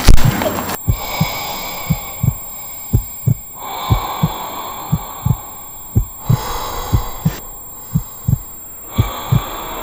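Heartbeat sound effect: a double thump about once a second over a steady low drone and hiss. A louder hiss cuts off just under a second in.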